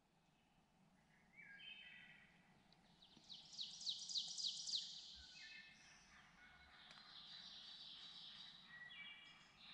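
Faint songbirds singing: a rapid trill of short falling notes about three seconds in is the loudest, with softer whistled phrases before and after it.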